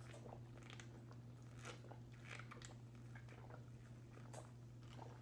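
Faint chewing and crunching of someone eating fast food, a scatter of soft crackly clicks, over a steady low hum.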